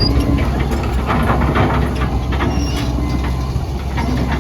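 John Deere 160D excavator's 4.5-litre diesel engine running steadily, with frequent irregular metallic clicks and clanks over it.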